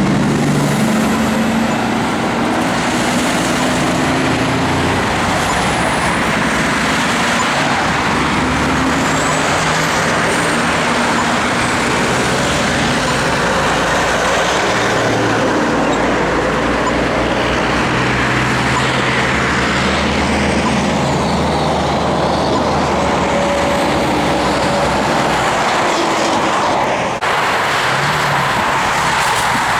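Heavy road traffic: trucks and cars passing with engines running and loud tyre noise, one engine tone giving way to another, with a brief break near the end.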